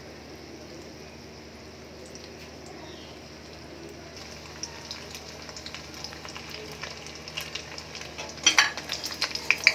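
Cornflour-coated paneer cubes sizzling as they fry in hot oil in a steel kadhai, the crackle growing busier from about halfway. Near the end a slotted steel spoon stirs them, adding sharper scrapes and clicks.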